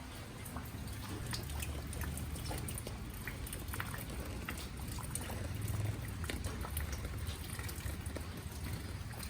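Water trickling and dripping, with many small scattered clicks over a steady low rumble.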